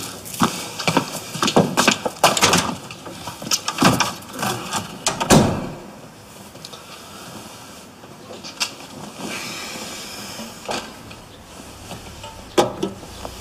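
A run of knocks and clicks, ending in a door shutting about five seconds in. After that the room is quiet, with a few faint clicks and rustles.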